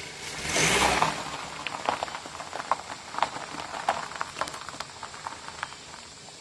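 Pontiac Vibe pulling off on a gravel driveway: a short surge of engine and tyre noise in the first second, then scattered pops and crunches of gravel under the tyres as it rolls slowly away.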